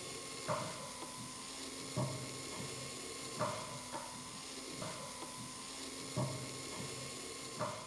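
Marionette's drive mechanism running: a steady motor hum under a regular rhythm of knocks, a louder one about every second and a half with lighter clicks between, from the rods, hooks and linkages working the puppet and its feet tapping on the platform.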